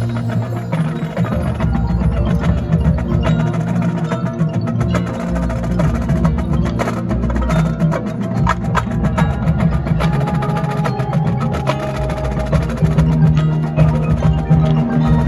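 Marching band playing, with sustained low brass-range tones under busy, rapid percussion strikes.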